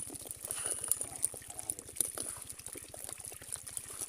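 A heap of freshly caught small live fish flapping and slapping against one another: many quick, irregular slaps and ticks.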